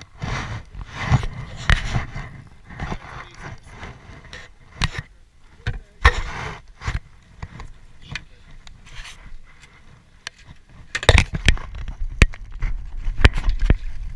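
Irregular scrapes and sharp knocks, growing louder and denser near the end.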